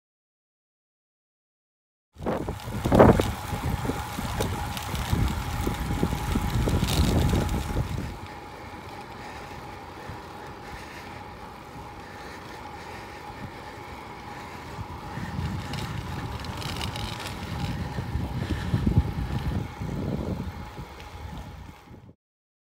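Wind buffeting the microphone and tyre noise on asphalt from a moving road bicycle, with gusty low rumbling and a faint steady whine. It starts about two seconds in and cuts off suddenly near the end.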